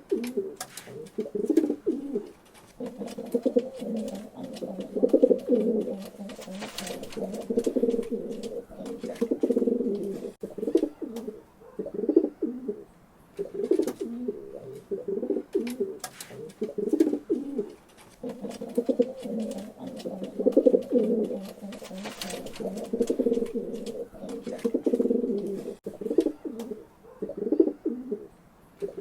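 Pigeons cooing almost without a break, low throaty coos overlapping one another, with scattered sharp clicks.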